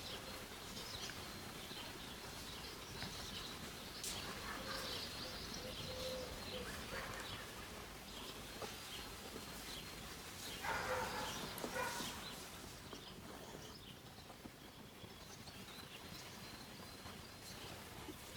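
Outdoor rural background with birds chirping off and on, and one louder animal call about eleven seconds in.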